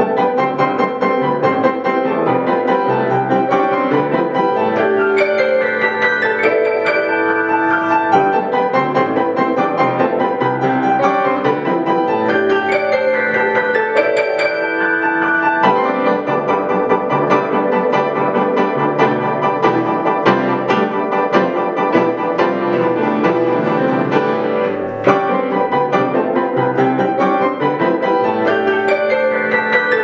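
Two grand pianos playing a duet in a classical arrangement, with dense, continuous playing and many quick notes.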